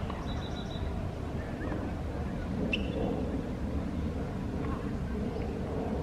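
Steady low outdoor rumble, with small bird chirps over it: a quick run of four short high notes just after the start and a single sharp chirp about halfway through.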